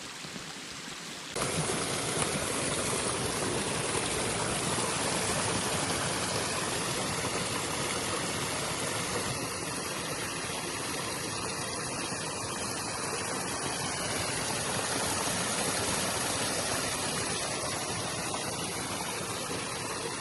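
A small forest spring's water running, a steady rushing that grows louder about a second and a half in.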